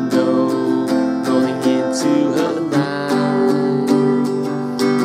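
Yamaha JR1 acoustic guitar strummed in a steady rhythm of a few strokes a second, changing chord about halfway through as it moves between A minor and F major 7.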